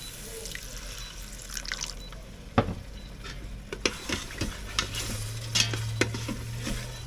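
A spoon stirring thick curry paste in a pot, with scattered clinks against the pot over a soft sizzle. A steady low hum comes in about two-thirds of the way through.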